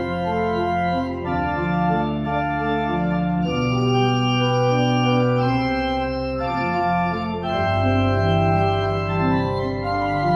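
Church pipe organ playing a slow passage of held chords over deep bass notes, the chord changing about once a second.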